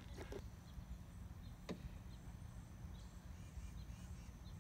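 Quiet outdoor ambience: a low wind rumble with faint high bird chirps now and then, and one sharp click a little under two seconds in.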